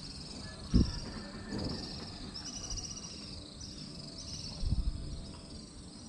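Insects chirping in a steady, high-pitched pulsing chorus that repeats in short phrases, with two dull knocks, about a second in and near the end.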